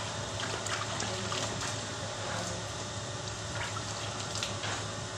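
Water squeezed from a sponge splashing and trickling down a car door panel as it is wiped over, wetting the filler-patched panel before block sanding.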